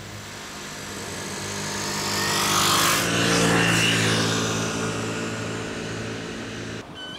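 A motor vehicle passing by: its engine grows louder to a peak about three seconds in, then fades away, and the sound cuts off abruptly near the end.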